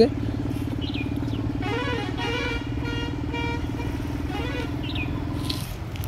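A motor vehicle's engine running steadily while driving along the road, a steady hum that drops away shortly before the end. A voice is heard over it in the middle.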